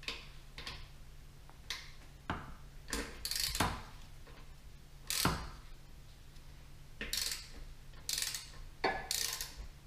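3/8-inch drive socket ratchet clicking in short, irregular runs as the engine's oil drain plug is tightened back in.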